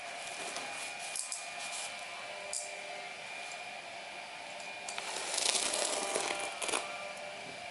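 Packaging being handled during an unboxing, with scattered crinkles and clicks and a louder stretch of crinkling about five seconds in, over a steady hiss.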